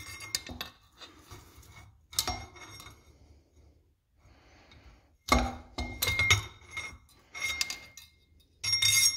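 Small screwdriver clinking and scraping against the metal reservoir tube of a Fox shock while a snap ring is pried and spun out of its groove: a series of irregular metallic clinks with a brief ring, the loudest in a cluster past the middle and again near the end.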